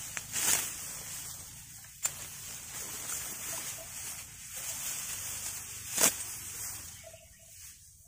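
Hand sickle slicing through ripe rice stalks, with dry stalks rustling as they are gathered. Three sharp cutting snaps stand out, the loudest near six seconds.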